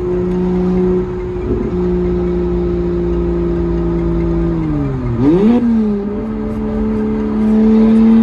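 BMW N54 inline-six with a big single turbo, heard from inside the cabin while driving on the highway: a steady engine note that dips sharply and swings back up about five seconds in, then climbs slowly as the car pulls.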